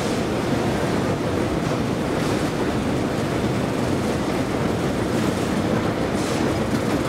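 Escalator running with a steady rumble and light clatter of the moving steps, heard from a rider on it.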